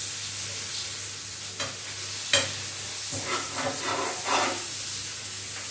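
Chili chicken gravy of onion, capsicum and sauces sizzling in a hot pan while it is stirred with a spatula, with a steady hiss. The spatula knocks against the pan twice in the first half, then scrapes.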